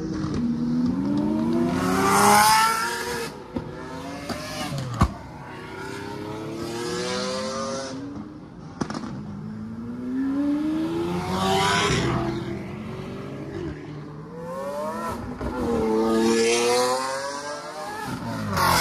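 Lamborghini Aventador V12 supercars on aftermarket exhausts accelerating hard past one after another. Each engine's pitch climbs, drops at a gearshift and climbs again, as four or five cars go by. A single sharp crack comes about five seconds in.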